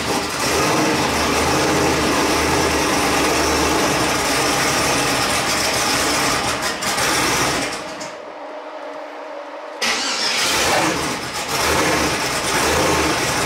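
Twin-turbo LS V8 in a New Edge Mustang running just after a start, kept going on a little throttle because it won't idle on its own. It dies about eight seconds in and catches again about two seconds later.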